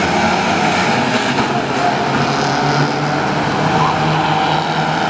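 A pack of ministox stock cars, small Mini-based racing cars, running together round an oval track, many engines sounding over one another in a steady din.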